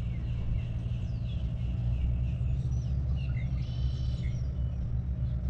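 Steady low engine rumble, with a few faint bird chirps over it.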